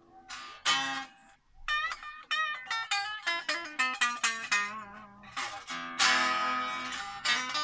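Epiphone Les Paul Special electric guitar test-played after its bridge was raised: single plucked notes, some bent or wavering in pitch, then a strummed chord about six seconds in and more picked notes. The string action is still too low.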